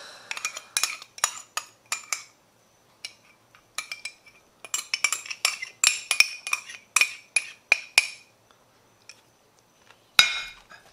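Metal spoon tapping and scraping against a ceramic mug as sauce is spooned out, each tap leaving a short ring. The clinks come in two busy runs, with a louder knock near the end.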